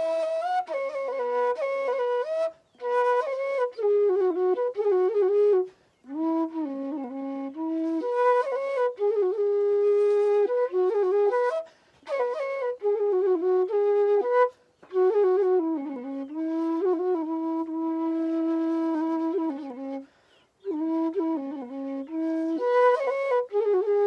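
Solo flute playing a Nepali folk melody: one melodic line in phrases broken by short pauses for breath, with some notes bent or slid into.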